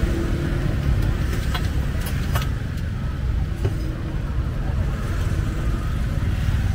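Steady low engine rumble of street traffic, with motor vehicles running close by. A few short, sharp clicks of metal utensils are heard over it.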